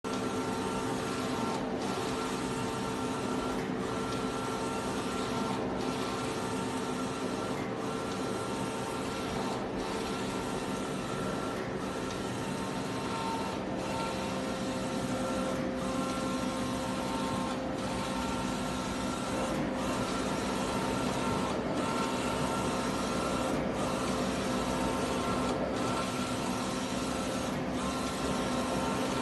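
Sticker printing machine running: a steady mechanical hum with a few held tones, broken by a brief dip about every two seconds.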